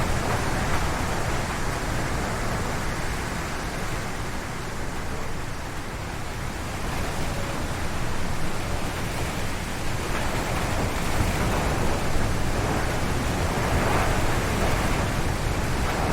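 Strong wind gusting through forest trees, a steady rush with heavy low rumble on the microphone, easing a little about a third of the way in and swelling again from about two-thirds of the way through.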